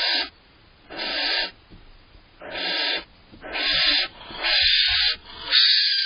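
Female barn owl giving a run of harsh hissing screeches, about six half-second hisses coming a little faster toward the end, a sign of her annoyance at the male eating cached prey.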